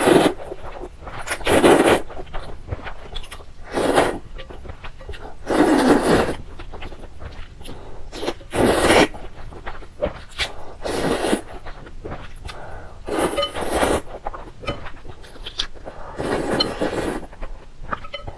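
A person slurping noodles in repeated noisy bursts every two to three seconds, with small wet clicks between the slurps.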